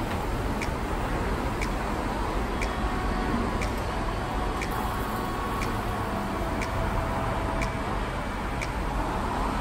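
Steady road traffic from cars and buses passing on a multi-lane road, with a sharp tick repeating evenly about once a second.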